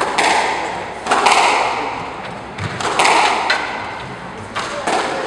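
A squash ball struck with a racket and hitting the court walls, several sharp strikes about one to two seconds apart, each with a long echo that dies away.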